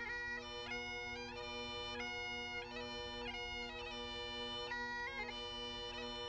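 Bagpipe music: a steady drone under a chanter melody that steps between held notes.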